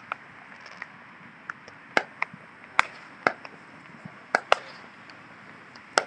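Fireworks going off, a scattered series of sharp cracks and pops at irregular intervals, some much louder than others.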